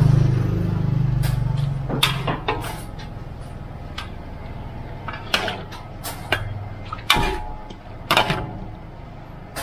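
Metal spatula clinking and scraping in a wok at irregular intervals, with the gas burner off. A low hum fades away over the first two seconds.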